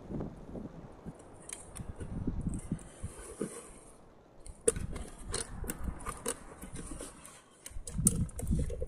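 Split sections of a wooden log knocking together as they are handled and set down, with rustling and a run of light clicks.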